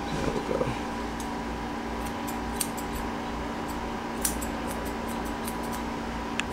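Grooming shears snipping a dog's facial hair in short, scattered cuts, over a steady low hum. A brief low murmur is heard at the very start.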